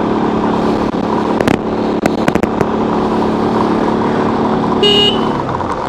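Motorcycle engine running at a steady speed under way, with a few sharp clicks and a short high beep about five seconds in.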